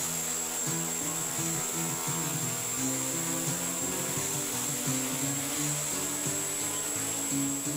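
Background music with a stepping melody, over the steady high whine of a Walkera V400D-02 electric RC helicopter hovering.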